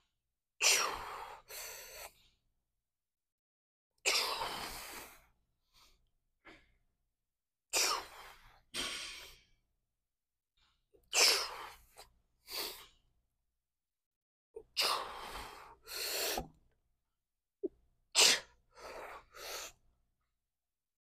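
A lifter's forceful, hissing breaths as he strains through barbell preacher curl reps. The breaths come in clusters of one to three sharp exhales and gasps, a cluster every three to four seconds, with silence between them.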